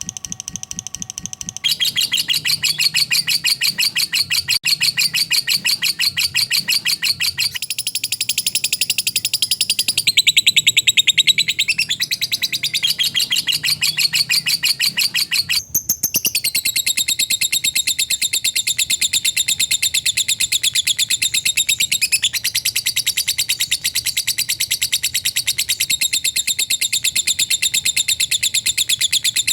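Lovebird ngekek: a long, very rapid chattering trill of tightly packed high notes that runs on without a pause, breaking off for a moment about halfway through and then resuming.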